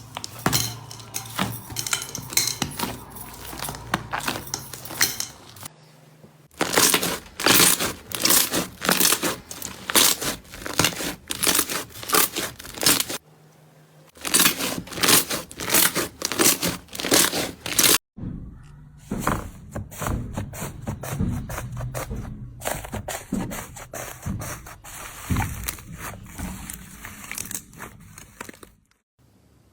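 Slime being squeezed and pressed by hand, giving dense crackling and popping clicks. It comes in several short clips cut together, with abrupt changes about six, thirteen and eighteen seconds in.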